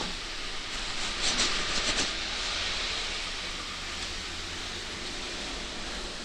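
Steady hiss of rain and wet street noise. A louder, crackly spell of hiss comes between one and two seconds in.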